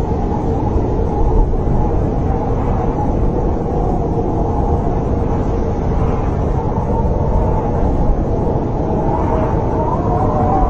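Snowstorm wind blowing steadily, mostly low-pitched, with a faint howling tone that wavers in pitch.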